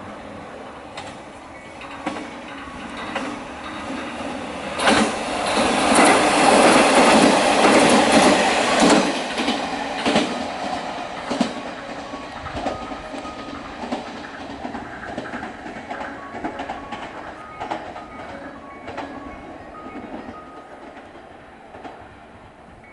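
KiHa 47 diesel railcar train running past at close range, loudest about five to ten seconds in, with wheels clicking over the rail joints, then fading as it moves away.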